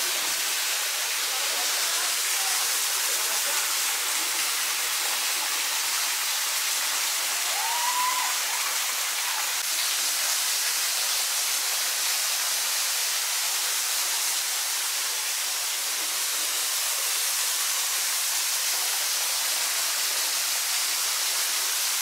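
A thin waterfall running low, a single stream of water falling off a rock ledge into a pool, makes a steady, unbroken splashing rush. A brief whistle rises and falls about eight seconds in.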